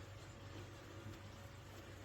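Faint room tone: a low steady hum under a soft hiss, with no distinct sounds.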